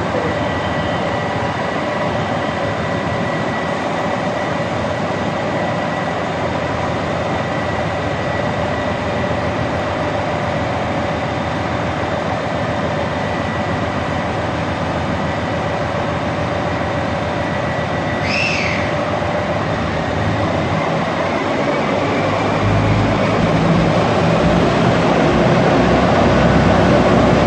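Super Ozora diesel express train running at a platform, then its engines powering up as it pulls away, getting louder and deeper over the last few seconds. A brief high whistle falling in pitch sounds about two-thirds of the way through.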